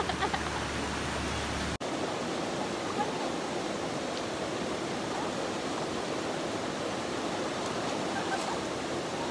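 Shallow river rushing over rocks, a steady even rush of water. The sound breaks off for an instant about two seconds in.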